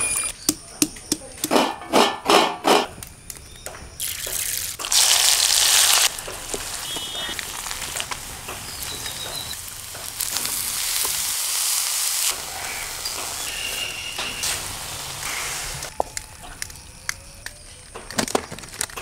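Shallots and garlic pounded in a steel bowl: a quick run of sharp knocks. Then a loud hiss as they hit hot oil, settling into a steady sizzle as the thoran is stir-fried in the pan.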